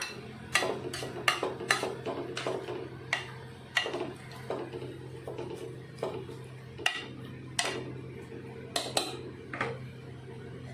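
Metal spoon stirring greens and lentils in water in a metal pressure cooker pot, clinking against the pot about once or twice a second, irregularly. A low steady hum runs underneath.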